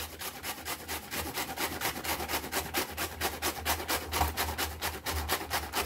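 Cabbage being grated on a stainless steel grater: a quick, even run of rasping strokes, about five a second.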